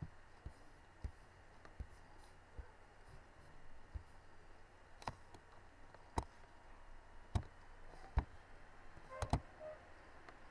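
Computer mouse clicking over a faint steady hiss: about a dozen single clicks at irregular intervals, with a quick run of three near the end.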